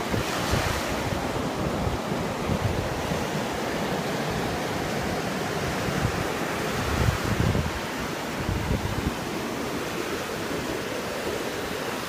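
Rough sea surf breaking and washing up a sandy beach in a steady wash of noise, with wind buffeting the microphone in gusts, the strongest about seven seconds in.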